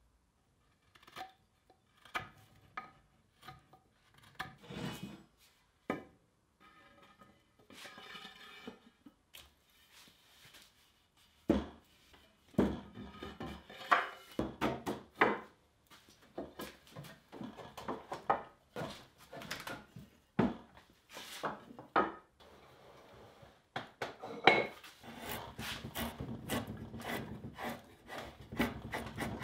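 Scattered sharp clicks and knocks of wood and metal hand tools being handled at a workbench, some with a short metallic ring. Near the end a rasp starts stroking along the wooden pickaxe handle, a steady scraping.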